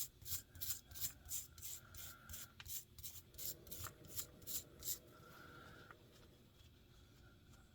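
Quick back-and-forth scrubbing strokes, about three a second, rubbing built-up grime off a guitar pickup; they stop about five seconds in.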